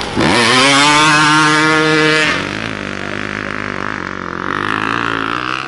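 Dirt bike engine revving up sharply and holding high revs for about two seconds as the bike pulls through the mud close by. It then drops to a quieter, lower engine note as the bike moves off.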